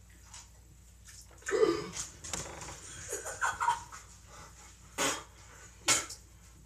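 A person doused in the face with water while asleep wakes with a startled cry and sputters, then coughs sharply twice, choking on the water.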